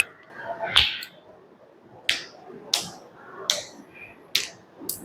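A series of about six sharp cracks, irregularly spaced over a few seconds, from spinal and neck joints popping under a chiropractor's manual adjustment.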